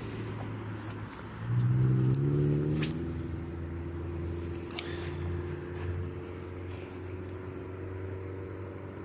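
A car engine running, its pitch rising for about a second and a half as it accelerates, then holding steady. A few faint clicks sound over it.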